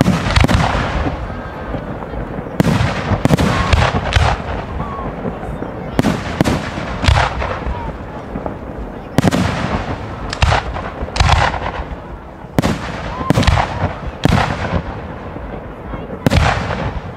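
Fireworks display: aerial shells bursting one after another, about a dozen loud bangs, each with an echoing tail.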